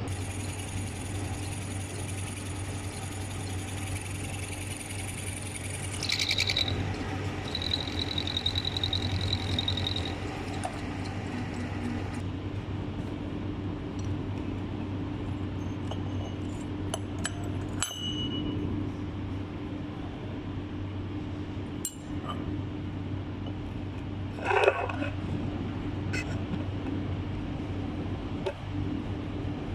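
Milling machine running with a steady hum while cutting slots, a high whine over the first ten seconds, then scattered metallic clinks and a louder knock about three-quarters of the way through.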